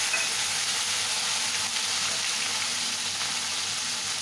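Onion paste and garlic-cumin paste sizzling steadily in hot oil in a wok, the start of frying the spice paste for a fish curry.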